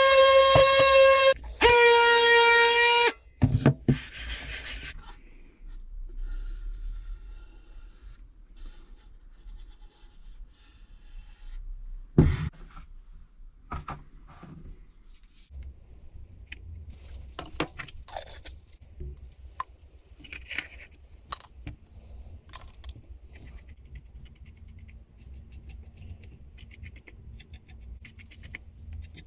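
Music for about the first three seconds, then hand work on the old wooden book rest: irregular scraping and rubbing with scattered small clicks, one louder knock, and a low hum in the background.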